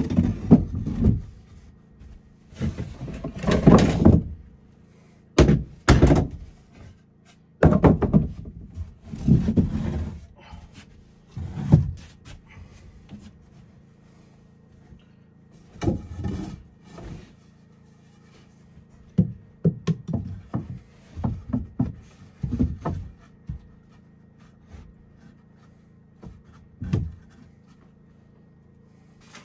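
Irregular thunks and knocks from carpentry work on wood, in clusters with short pauses between them.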